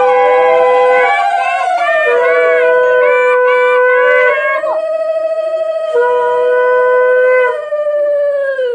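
Two blown horns sounding long held notes together. One note is steady and breaks off twice for a moment; the other wavers slightly. Both sag in pitch and fade out at the very end.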